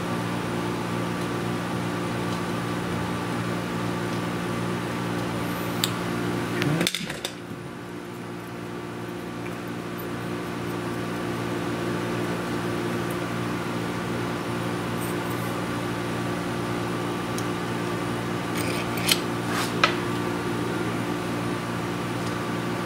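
A steady background hum with several low tones, broken by sharp metallic clicks from small hardware and hand tools. The clicks come as split washers, nuts and a screwdriver are worked onto the fan motor housing's bolts: a cluster about seven seconds in and two single clicks near the end.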